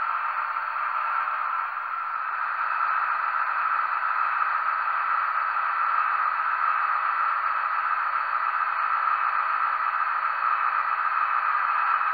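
Märklin H0 model of a DB class 218 diesel locomotive running slowly while shunting up to a coach: a steady, hissy hum.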